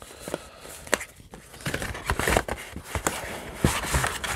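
Photos and paper sheets being handled and shuffled in a plastic tote: a couple of sharp taps in the first second, then steady paper rustling from about a second and a half in.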